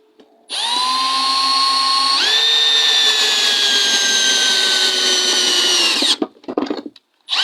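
Milwaukee M12 FUEL brushless hammer drill on slow speed driving a coach bolt with a 13 mm hex socket. The motor whine starts about half a second in, steps up in pitch around two seconds in, then falls slowly as the bolt tightens, and stops about six seconds in. Two short blips of the trigger follow near the end.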